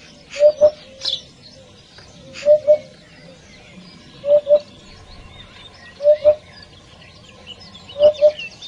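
Hoopoe calling: a low two-note "hoop-hoop", repeated five times about every two seconds. Small birds chirp faintly in the background.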